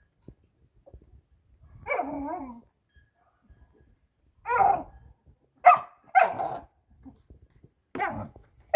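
Pit bull barking, about six short barks at uneven intervals.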